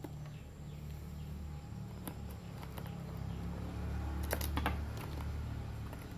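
Light irregular clicks and rattles of metal alligator clips and multimeter test leads being handled and clamped, with a cluster of sharper clicks about four seconds in. A steady low hum runs underneath.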